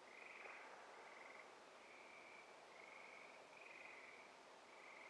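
Faint frogs trilling at night: a chorus of short pulsed trills, each lasting about half a second to a second, following one another with barely a break.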